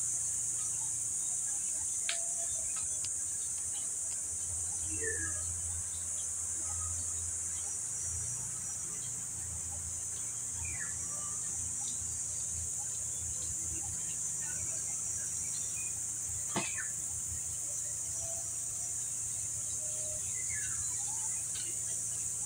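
Steady, high-pitched drone of insects in the trees, with a few short falling bird chirps over it and one sharp click about two-thirds of the way through.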